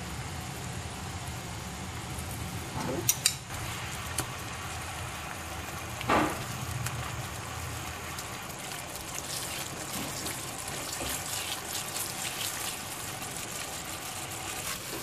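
Red curry paste frying in boiling coconut milk in a pan as it is stirred with a spoon: a steady bubbling sizzle. There are a few sharp clicks and knocks of the spoon about three and six seconds in, and the sizzle turns more crackly in the second half as the paste cooks into the oil.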